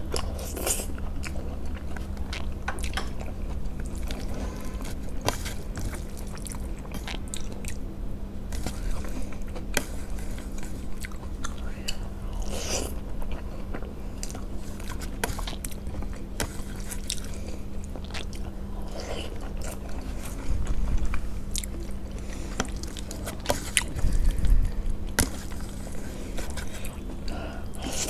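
Close-miked eating: wet chewing and biting with many small irregular mouth clicks, over a steady low hum.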